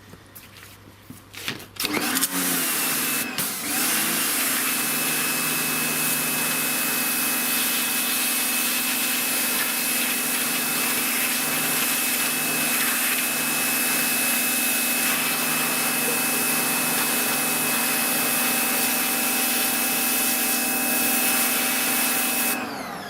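Sunpow BCN-H electric pressure washer starts about two seconds in and runs steadily, its motor and pump humming with a high whine over the hiss of water from the wide 40-degree fan nozzle. It cuts off near the end.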